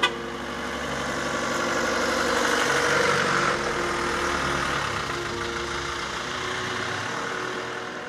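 An old van drives up and passes close by, its engine and tyre noise swelling to a peak about three seconds in and then slowly fading. A short sharp click comes right at the start.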